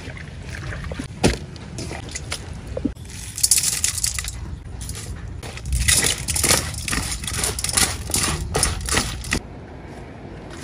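Hands mixing freshly sliced young bamboo shoots in a stainless steel bowl: rustling and crunching of the slices with small clinks against the metal. The handling is busiest from about three seconds in and dies down near the end.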